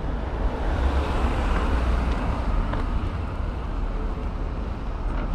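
Road traffic noise: a steady rumble and hiss of vehicles that swells about a second in.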